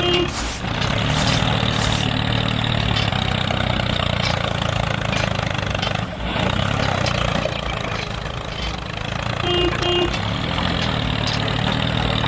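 Toy remote-control excavator giving off a steady engine-like running sound as it tracks forward and swings its boom. A quick double beep sounds about three-quarters of the way through.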